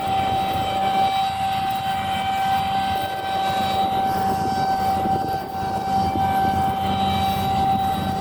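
Claas Lexion 8900 combine harvester running steadily while cutting wheat, heard inside its cab: a steady drone with a high whine held on one pitch.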